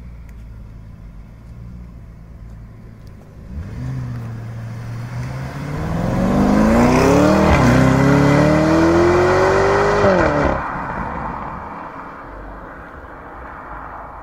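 A high-performance car engine accelerating hard: a low rumble starts climbing in pitch about three and a half seconds in and dips briefly at an upshift. It then keeps rising and cuts off sharply about ten and a half seconds in, leaving a fainter rumble.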